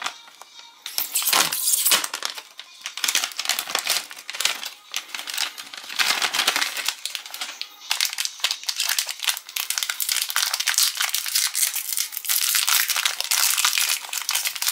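Plastic sweet-bag and foil wrapper crinkling in irregular spells as a wrapped cookie is handled and unwrapped.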